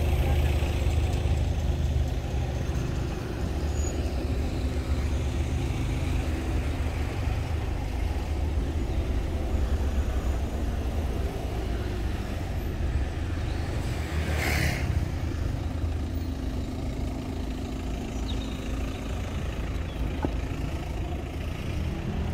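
Steady low rumble of a queue of cars idling and creeping forward in slow traffic. A brief hiss comes about two-thirds of the way through.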